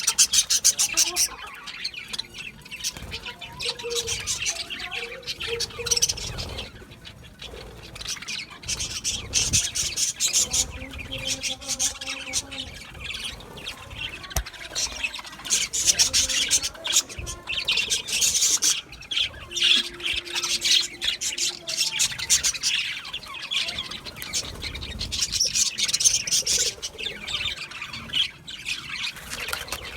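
Budgerigars chattering, a dense run of rapid high chirps and squawks, swelling into louder bouts every few seconds.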